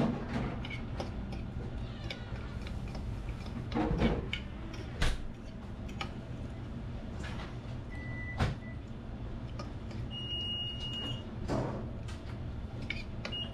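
Knife and cutlery clicking and scraping on the plate while a breaded pork cutlet (tonkatsu) is cut and eaten, a few sharp clicks among them, over a steady low hum. A short high beep sounds a little past two-thirds of the way through.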